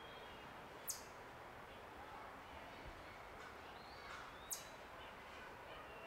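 Faint, distant songbirds singing in woodland over a soft steady hiss, with a few short whistled notes. Two brief, sharp high-pitched chips stand out, about a second in and about four and a half seconds in.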